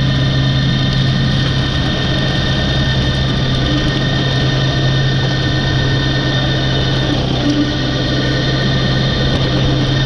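New Holland T6 tractor driving a flail mower through rough grass and reeds: a loud, steady mechanical running sound with a constant low hum.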